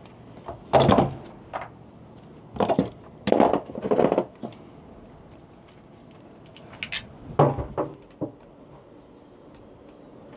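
Hand wire strippers and crimpers at work on electrical leads: a series of short clacks and snips as the tool bites and the insulation is pulled off, in three clusters with quieter gaps between.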